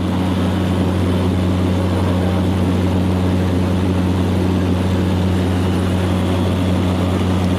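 An engine running steadily: a loud, even low drone that does not change pitch.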